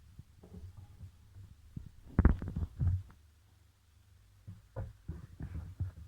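A run of irregular knocks and thuds over a steady low hum, the loudest about two seconds in, with a few lighter clicks near the end.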